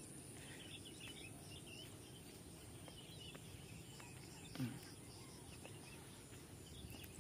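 Faint field ambience: a steady low rumbling noise, faint scattered small-bird chirps and a steady high insect buzz. About four and a half seconds in comes one brief low sound that falls in pitch.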